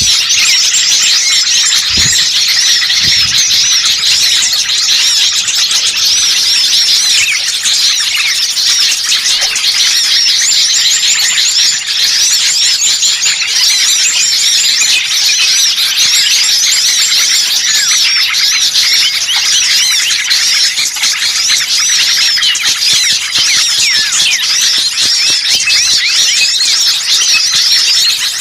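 Dense, continuous chorus of many small songbirds chirping and twittering over each other, high-pitched and agitated: a bird-lure recording of noisy small birds ("burcil ribut") used to draw wild birds in.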